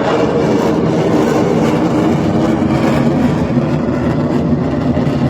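Jet aircraft engine noise from a flypast, loud and steady throughout.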